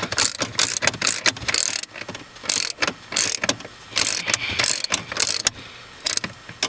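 Hand ratchet wrench clicking in short, irregular runs as it is swung back and forth, working a nut down onto a stud to fasten a ground wire.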